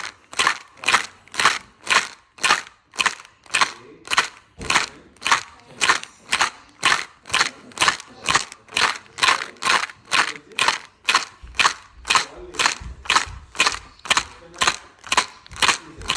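Baby rattle shaken in a steady, even rhythm, about two rattles a second.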